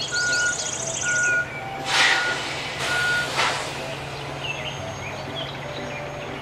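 A truck's reversing alarm beeps four times, about a second apart, at one steady pitch, then stops. Under it a truck engine drones steadily, and there are two short bursts of hiss about two and three and a half seconds in. Birds chirp faintly.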